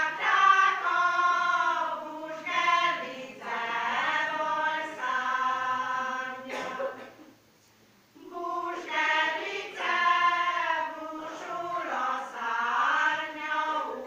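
Women's choir singing a Hungarian folk song: two long sung phrases with a pause of about a second for breath near the middle.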